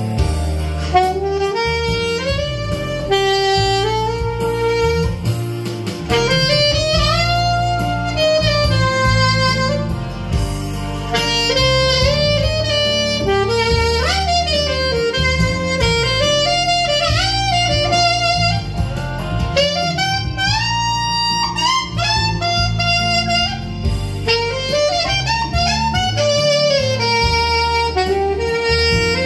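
Alto saxophone playing a slow ballad melody with sliding, wavering notes over a low accompaniment, test-played after a repair.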